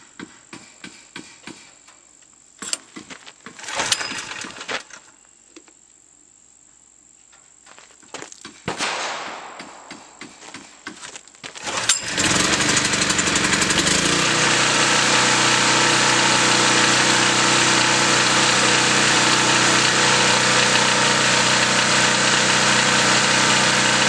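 Chinese 3250-watt portable generator's small single-cylinder gasoline engine being pull-started. After handling noises and a hard pull on the recoil starter, it catches about halfway through and then runs steadily at a constant speed, freshly cold-started.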